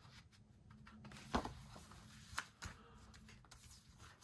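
Paper and card being handled on a tabletop: soft rustling with a few light taps, the loudest about a second and a half in.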